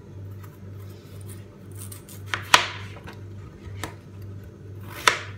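A few sharp knocks and clatters of a kitchen knife and utensils as vegetables are cut, irregularly spaced; the two loudest, about two and a half seconds in and near the end, ring briefly.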